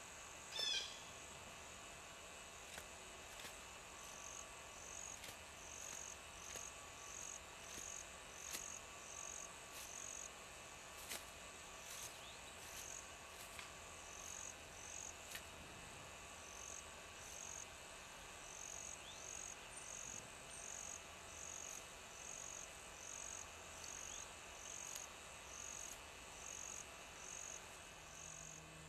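Faint outdoor animal ambience: short high chirps repeating about one and a half times a second, a brief falling call about a second in, and scattered faint taps.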